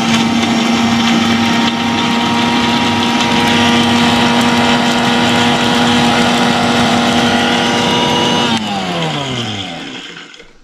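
Prestige electric mixer grinder running steadily at full speed, grinding roasted sesame seeds for chutney. About eight and a half seconds in it is switched off and the motor winds down, its hum falling in pitch as it fades.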